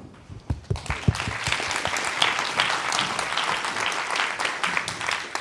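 Conference audience applauding: a few scattered claps at first, swelling quickly into full applause that dies away near the end.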